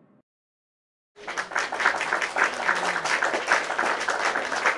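Crowd applauding with dense, even clapping, starting abruptly about a second in after a brief silence.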